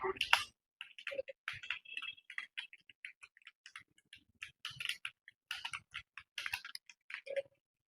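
Typing on a computer keyboard: quick, irregular keystroke clicks, several a second, thinning briefly about halfway through.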